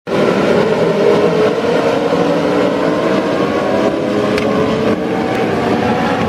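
A pack of Legends race cars running on a dirt oval, their Yamaha four-cylinder motorcycle engines at high revs blending into one continuous, overlapping engine drone with shifting pitches.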